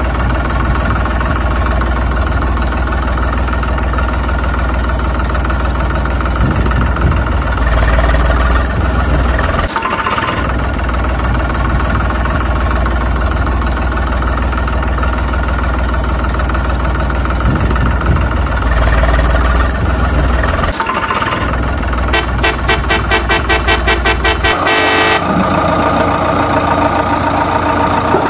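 Engine sound effect: a heavy vehicle engine idling steadily, dropping out briefly twice. Near the end comes a fast run of pulses, and then a different engine note takes over.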